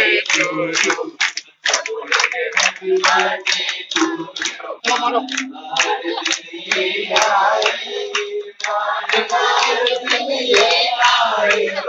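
A group of people singing together while clapping along in a steady rhythm, about three to four claps a second.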